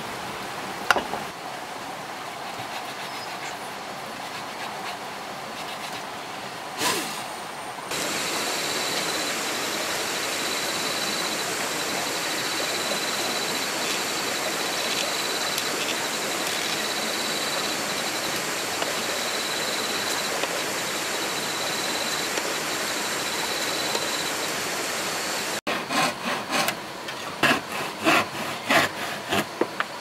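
Steady background hiss with a faint high whine for most of the time, then, in the last few seconds, a hand frame saw cutting wood in quick, uneven strokes, about two a second.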